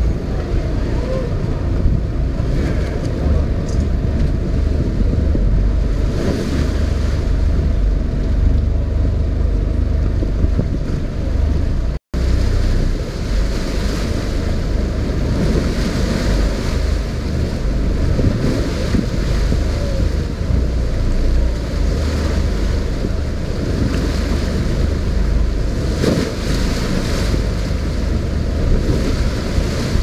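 Wind buffeting the microphone on a boat at sea, a steady low rumble, with waves washing around the boat. The sound cuts out for an instant about twelve seconds in.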